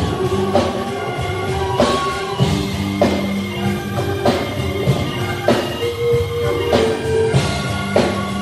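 Live band music with no vocals: a drum kit keeps a steady beat, a little under two hits a second, under held bass and instrument notes.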